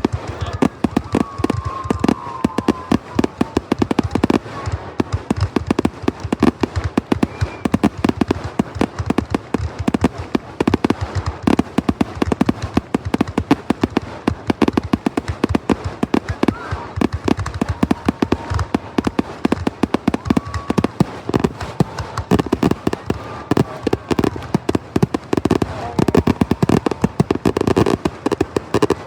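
Fireworks display in a dense, continuous barrage, many bangs and crackles each second without a pause.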